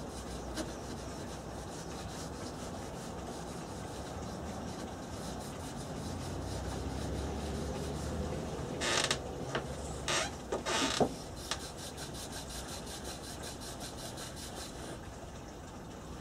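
A cloth rag rubbing wood balm into a yew picture frame: a steady rubbing, with a few short, louder scrapes about nine to eleven seconds in.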